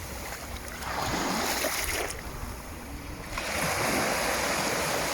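Black Sea waves washing in: the surge of water swells about a second in, eases off in the middle, and swells again.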